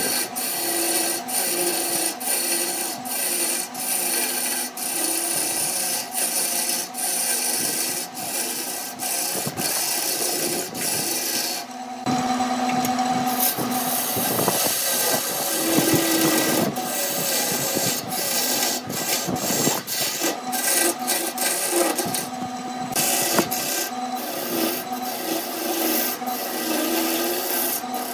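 A turning tool cutting into a spinning laminated wood blank on a wood lathe: a steady scraping hiss over the lathe's low hum. In the first half the cut breaks off briefly every half second or so; from about the middle it runs unbroken and heavier.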